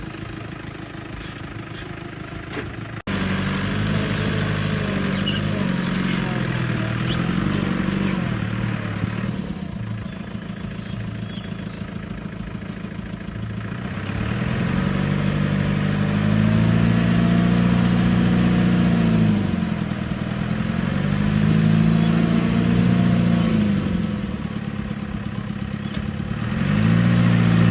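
Heavy diesel engine of an earthmoving machine running and being revved: its pitch rises, holds and drops back several times in the second half.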